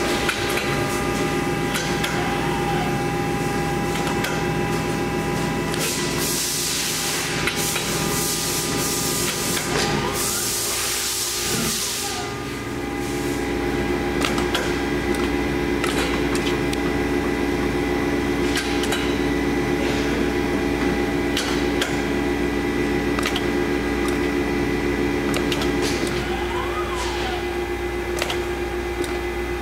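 Roper Whitney AB1014K CNC folder running under power: a steady motor hum with scattered mechanical clicks. A stretch of hiss comes in for several seconds and then stops, and the hum changes tone again near the end.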